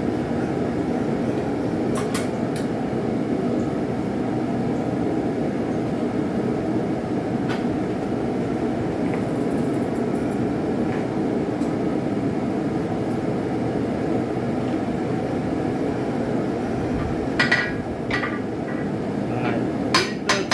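Steady roar of a blacksmith's forge, with a few sharp metallic hammer strikes and clinks on hot steel. A couple of strikes come early, one near the middle, and the loudest cluster comes near the end.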